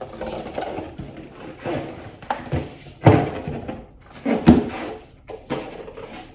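Handling noise as a new surfboard and its packaging are moved about, with rustling and several irregular knocks and thumps, the loudest about three seconds in and again about a second later.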